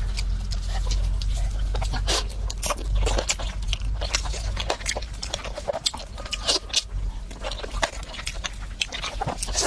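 A person chewing and biting food close to the microphone: many short, irregular clicks and crackles, over a steady low hum.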